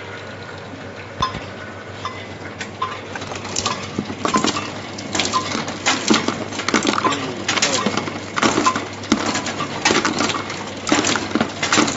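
Cracked cashew nuts and shell pieces dropping out of an automatic cashew sheller into a plastic basin. They make an irregular clatter of small clicks that gets much busier after the first few seconds, over the machine's steady low hum.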